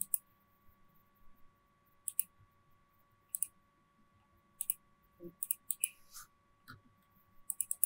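Computer mouse and keyboard clicks: a few single clicks a second or so apart, then quicker runs of clicks about midway and again near the end, over a faint steady hum.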